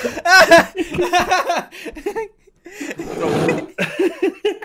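Two men laughing hard in fits and bursts, with a brief scuffling noise about three seconds in.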